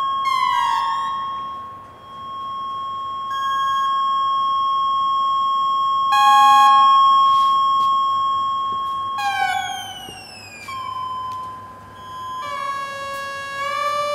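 Electronic synthesizer tones: a steady high drone broken by falling pitch glides near the start and about nine seconds in, then a run of stepped notes near the end.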